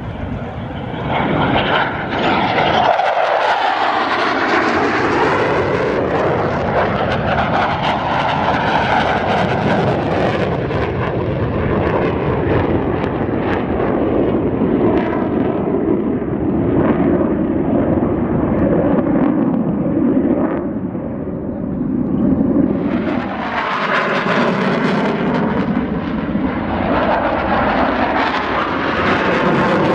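F-16 Fighting Falcon's single turbofan jet engine during a flying display: loud, continuous jet noise with slowly sweeping shifts in pitch as the fighter moves about the sky. It builds in the first couple of seconds, eases briefly about two-thirds through, then swells again.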